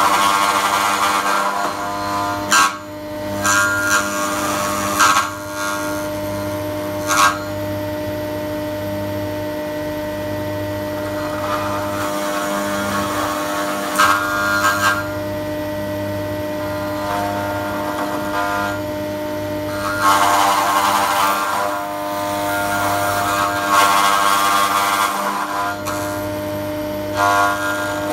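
A power tool's spinning bit in a horizontal mortising jig running steadily while it cuts a mortise into a wooden beam. Several louder spells of cutting noise, each a second or two long, come as the bit bites into the wood.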